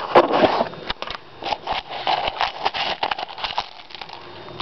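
Dry cat kibble rattling and clicking in a bowl as the bowl is handled and moved: a quick, irregular run of small clicks, busiest in the first second.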